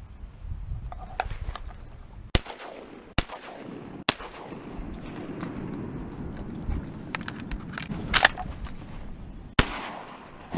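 Shotgun shots at flying ducks: three sharp blasts under a second apart, then two more near the end.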